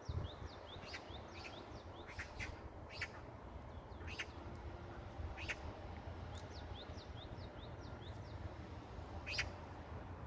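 Magpie calls: short harsh, scratchy calls every second or so, with a couple of runs of quick high falling chirps, over a low steady rumble.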